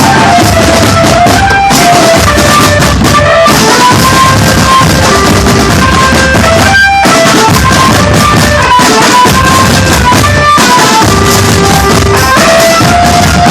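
A drum band plays a tune: a melody of held notes over continuous snare and bass drums, loud and steady, with short breaks between phrases.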